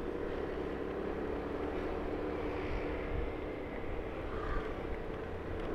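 A vehicle engine running at a steady speed on the move, a steady hum with road noise underneath.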